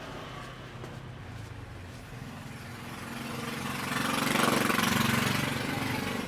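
A motorbike engine passes close by, getting louder to a peak about two-thirds of the way through and then fading.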